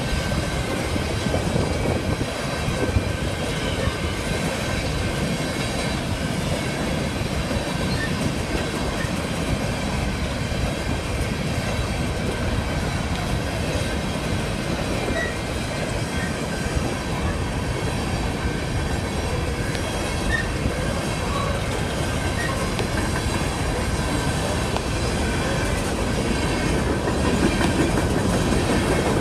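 Empty BNSF coal train rolling past at steady speed: empty coal cars rattling on their steel wheels over the rails, with a faint high wheel squeal at times.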